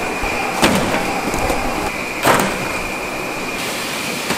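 Confectionery factory machinery running with a steady high whine, broken by two sharp knocks about a second and a half apart, like metal scrapers striking a stainless-steel tray of cut rice-and-peanut bars.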